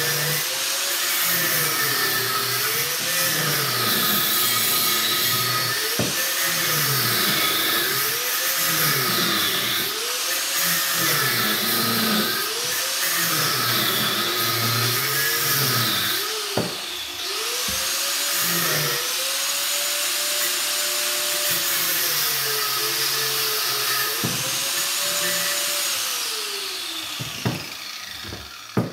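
Electric angle grinder cutting into the side of a large fan motor's casing, its whine dipping in pitch and recovering again and again as the disc is pressed in and eased off. Near the end it winds down and stops.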